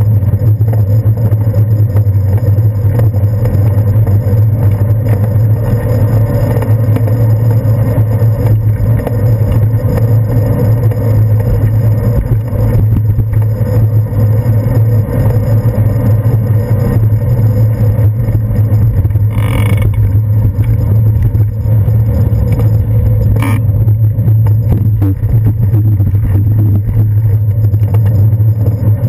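Steady low rumble of wind and road vibration carried through a handlebar-mounted GoPro Hero 2's housing as a bicycle rolls along a city street. Two brief knocks come about two-thirds of the way in, a few seconds apart.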